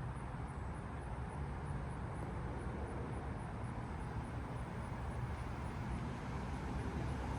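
Steady low-pitched background rumble with no distinct events.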